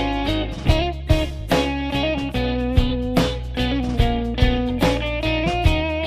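Background music: a guitar-led track with bass and a steady drum beat.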